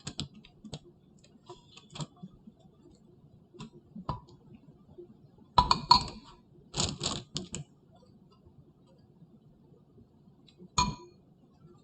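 Light kitchen clicks and taps from candy dipping: utensils knocking against a bowl and a baking pan. Two short clattering clusters in the middle, and one sharper tap with a brief ring near the end.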